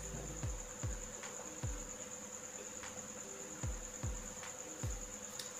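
Water being drunk from a glass, with several short low gulps at irregular intervals. A steady high-pitched whine runs underneath.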